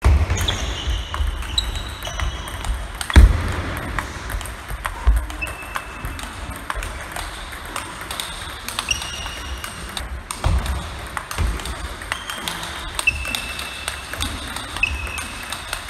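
Table tennis rally: the plastic ball clicking off the rubbers and bouncing on the table in a steady back-and-forth of topspin drives, each bounce a short ringing ping about once a second. A sharp thump about three seconds in is the loudest sound.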